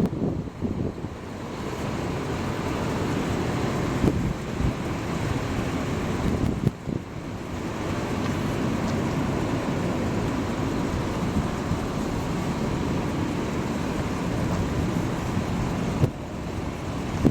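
Wind buffeting the microphone over a steady low vehicle rumble, with a few faint knocks.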